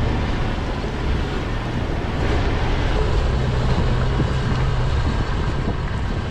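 Toyota FJ Cruiser driving steadily along a dirt and gravel track, heard close to the front wheel: a constant rush of tyres rolling over gravel and wind over a steady low engine hum.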